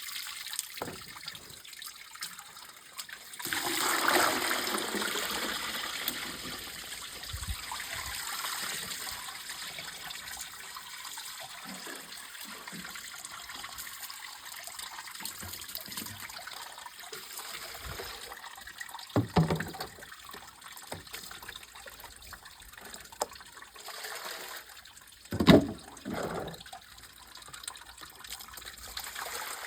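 Running water, a steady rush that swells louder about four seconds in. Sudden thumps come about nineteen and twenty-five seconds in, the second one the loudest.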